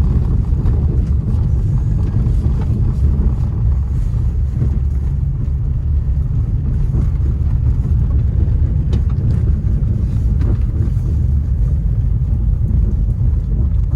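Car driving slowly over a gravel road, heard from inside the cabin: a steady low rumble of tyres and engine with a few faint ticks.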